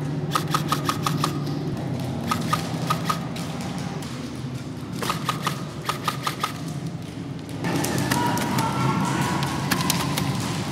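Airsoft guns firing in three short bursts of rapid shots, with a few scattered single shots later on.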